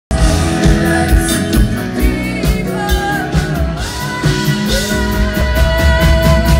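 Live rock band playing through PA speakers: drums, electric guitar and keyboards, with a singer's voice over them.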